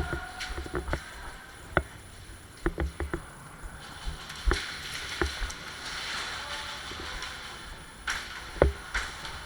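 Scattered sharp clicks and knocks over low thumps and a rustling hiss, typical of an airsoft player moving through a building with gear and pistol.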